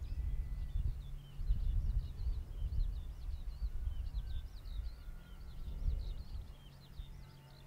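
Small birds chirping and singing in a continuous stream of quick, high calls, over a low, uneven rumble that fades near the end.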